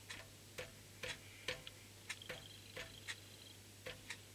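Irregular light clicks, about two a second, as the engine's crankshaft is nudged round by hand a little at a time, with a faint steady hum underneath.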